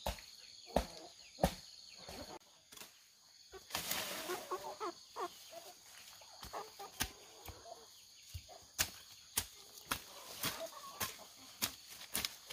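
Repeated sharp knocks, irregular at first and then coming about once or twice a second, with chickens clucking and a steady high tone underneath.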